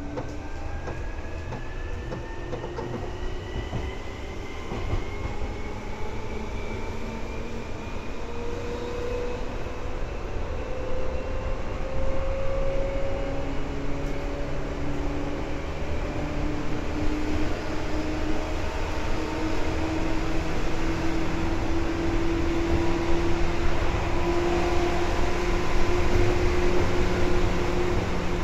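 Seibu 2000 series electric train running, heard from inside the car. The traction motors whine in several tones that climb slowly in pitch and grow gradually louder as the train picks up speed, over a steady running rumble.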